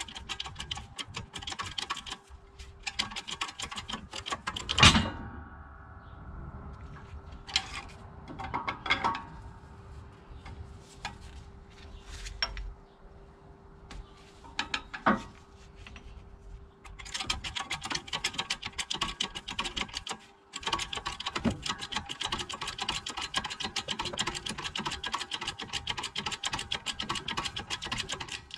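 Hydraulic shop press pressing the shaft out of a diesel vacuum pump, with fast metallic clicking while the press is worked. A single loud bang just before five seconds in is the press-fitted shaft breaking free. Scattered clunks follow as parts are handled, then another long stretch of fast clicking.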